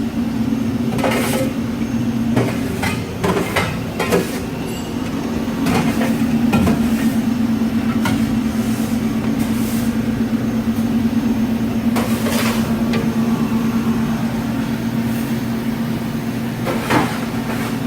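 A steady mechanical hum, with about a dozen sharp clanks and knocks at irregular intervals over it.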